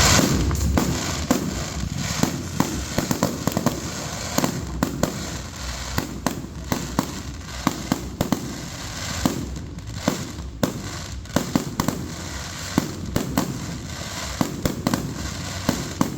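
Fireworks going off: a dense, irregular run of sharp bangs and crackles, several a second, over a continuous low rumble of reports and their echoes.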